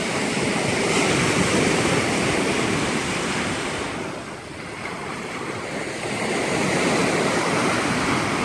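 Rough lake waves breaking and washing up on a sand and pebble shore in a steady surf. The surf eases about four seconds in and builds back up about two seconds later.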